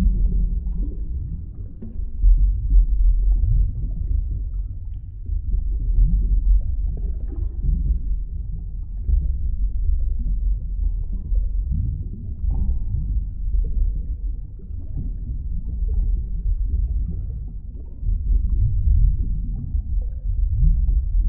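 Underwater ambience: a deep, muffled rumble of moving water that swells and eases every few seconds, with faint bubbling through it.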